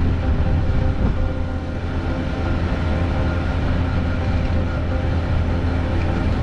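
Steady vehicle running noise while driving: a continuous low engine and road hum with a few steady tones above it.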